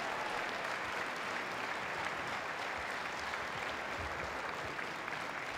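A crowd in a gymnasium applauding steadily, easing off slightly near the end.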